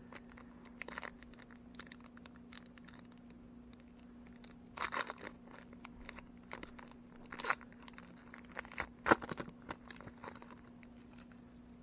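A 2019 Donruss baseball card pack's foil wrapper being torn open and crinkled by hand. It comes in irregular crackling bursts, the loudest near the end.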